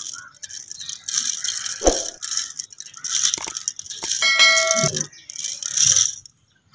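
Sugar shaken out over boiled corn cobs on a steel plate: granular rattling in four bursts of about a second each. About four seconds in, a short electronic chime from a subscribe-button animation sounds.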